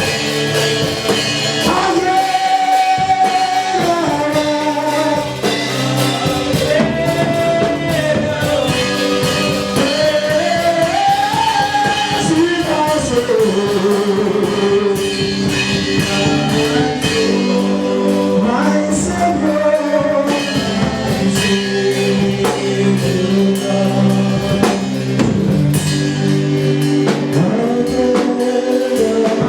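Live worship music: a lead singer carries a melody that glides up and down over a band accompaniment.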